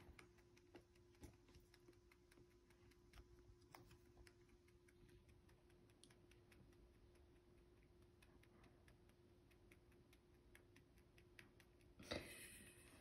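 Faint, rapid, irregular clicking of a rabbit chewing food, over a steady low hum. A short, louder, hissy burst comes about twelve seconds in.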